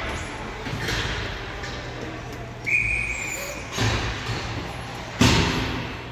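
A hockey referee's whistle gives one short, steady blast about three seconds in, in the echo of an ice arena over a low steady hum. Two sharp knocks follow; the second, near the end, is the loudest.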